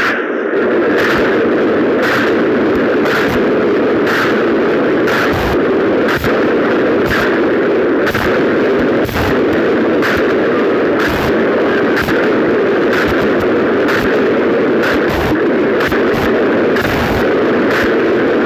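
Loud, heavily distorted noise with a regular heavy stamping about twice a second: a column of soldiers' boots striking the pavement in unison as they march.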